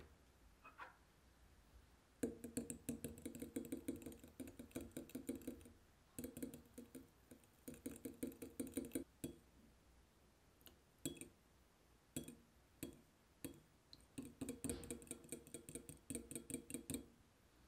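Metal spoon beating egg and milk in a glass bowl: rapid clinks of the spoon against the glass with a faint liquid slosh, in four runs broken by short pauses.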